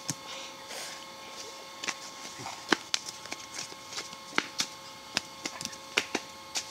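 Irregular sharp taps and slaps, a few a second, of children's feet landing on a concrete path as they jump, with the loudest about a third of the way in. A faint steady whine runs underneath.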